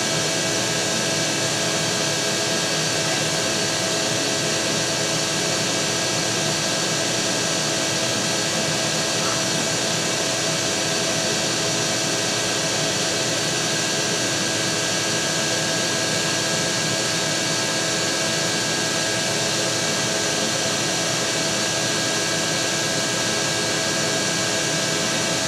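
Large shop vac (wet/dry vacuum) running steadily, a constant rush of air with several steady whining tones, its hose drawing yellow jackets out of a nest entrance.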